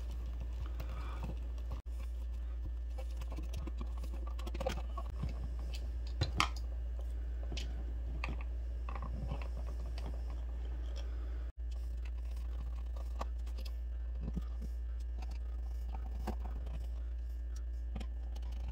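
Scattered light clicks, taps and scrapes of wires and a plastic GFCI receptacle being pushed into a wall box and screwed in with a screwdriver, then its cover plate fastened, over a steady low hum.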